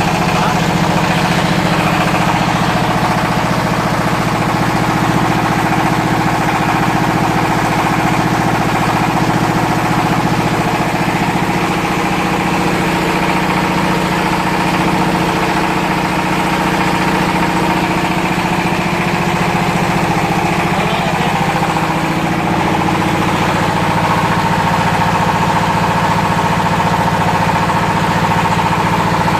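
Fish feed pellet machine running with a steady mechanical drone; the low part of the sound shifts slightly about halfway through.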